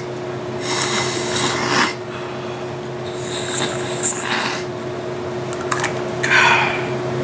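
A person sniffing hard through the nose while using a nasal spray, three long sniffs about two seconds apart, over a steady low hum.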